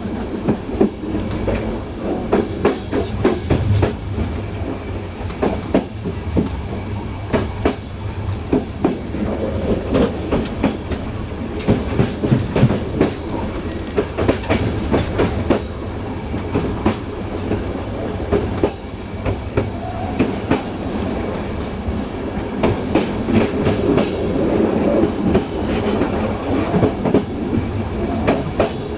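Passenger train coach wheels running over the track: a steady rumble with an irregular clatter of sharp knocks as the wheels cross rail joints and switches.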